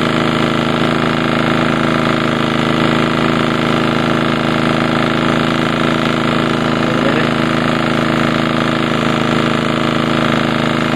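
Ryobi RYi2000 inverter generator's engine running steadily under a load of about 1,000 watts from an electric heater, its speed holding even.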